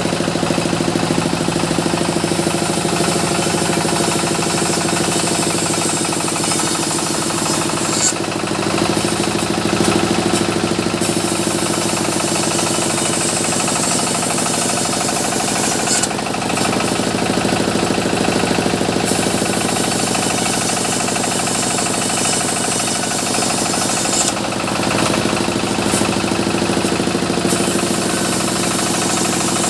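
Sawmill machinery running steadily while cutting mahogany: a constant engine-like drone under a high hiss that drops away for about three seconds roughly every eight seconds, with a short click at each drop.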